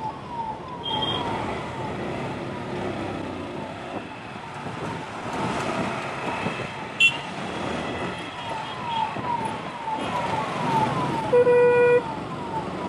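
Ambulance siren sounding in rapid short falling sweeps, about three a second, over traffic noise. The siren fades in the middle and comes back. A vehicle horn honks once, briefly, near the end.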